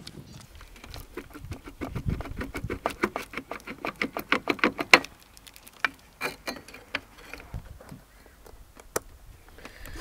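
A rapid run of small metallic clicks, several a second, from a screwdriver working fasteners on the engine's airbox and fittings. It stops about five seconds in and gives way to a few scattered single clicks.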